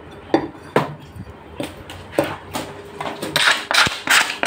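A cleaver chopping chicken on a chopping block: a few separate sharp knocks, then a faster run of louder chops with metallic clatter in the last second or so.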